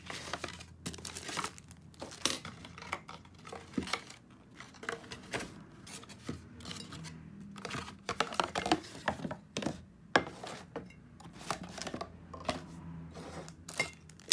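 Unboxing handling noise: cardboard box flaps and plastic wrap rustling and crinkling, with irregular knocks and taps as a glass coffee carafe and its stainless steel mesh filter are lifted out of the box.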